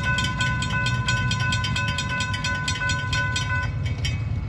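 Railroad crossing bells ringing in rapid, even strokes while the crossing gate arms lower. The bells stop a little before four seconds in, as the gates come down. A steady low rumble runs underneath.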